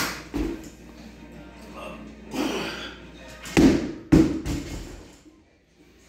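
A 135-pound barbell with rubber bumper plates dropped onto a rubber gym floor: two heavy thuds about half a second apart as it lands and bounces. At the start there is a sharper clank with a thump just after.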